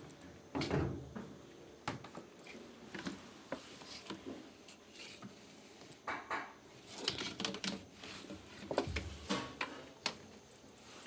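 Irregular clicks, knocks and scrapes of hard parts and tools being handled, with a few louder scraping bursts.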